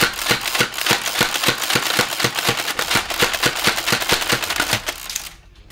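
X-Shot Crusher spring-powered foam dart blaster rapid-firing: the priming handle is pumped again and again, each stroke cocking the spring and firing a dart with a sharp plastic clack, about three shots a second. The firing stops suddenly near the end.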